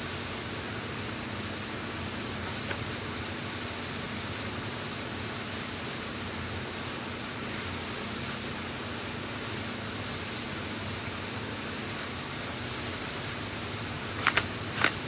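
Steady hiss of shop background noise with a faint low hum underneath, then three short, sharp clicks in quick succession near the end.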